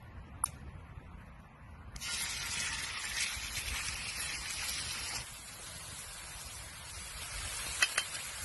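Raw chicken strips sizzling in hot oil in a cast iron skillet. A loud sizzle starts suddenly about two seconds in and settles to a steadier, quieter sizzle a few seconds later, with a couple of sharp clicks near the end.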